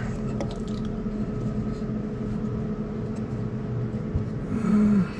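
Steady low rumble with a faint constant hum, and a short voiced hum from a person near the end.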